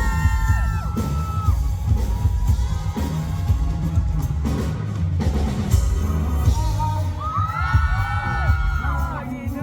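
A live band playing a rock song loudly, with heavy bass and drums, as fans in a large hall scream in high overlapping cheers at the start and again near the end.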